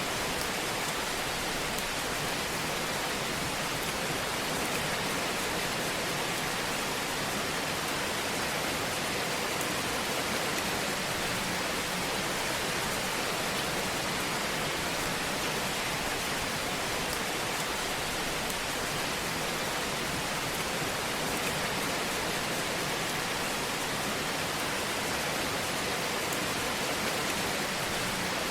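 Fire burning in a fireplace: a steady hiss with faint scattered crackles.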